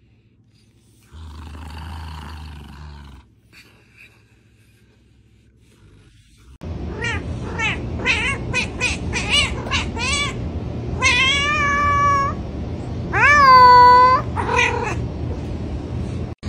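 Domestic tabby cat meowing: a quick run of short meows, then two longer drawn-out meows near the end, the second the loudest.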